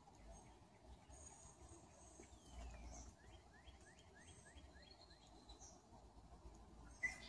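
Faint outdoor background with distant bird calls: a quick series of about six short rising notes a few seconds in, and thin high-pitched calls around it. A single sharp click near the end.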